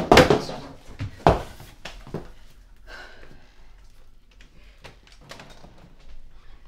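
Two heavy thumps close together, then lighter clicks of a door lock and knob as an apartment door is unlocked and pulled open.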